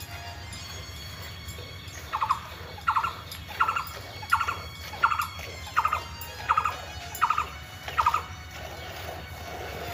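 A cow being milked by hand: jets of milk squirt into a pail, a short high squirt with each pull of the teats, about one every 0.7 seconds. The squirts start about two seconds in and stop about eight seconds in, nine in all.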